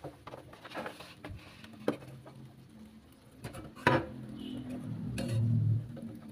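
Perforated metal skimmer clinking and scraping against a steel pot of boiling water while boiled fish cakes (pempek) are scooped out. There are several sharp clinks, the loudest about four seconds in, over the bubbling of the water.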